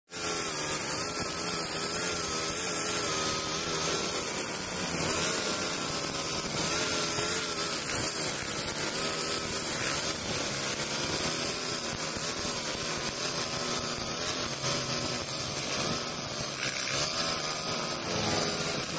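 Honda GX four-stroke backpack brush cutter running under load, its spinning nylon line cutting through tall grass. The engine speed wavers slightly up and down as the cutter sweeps through the grass.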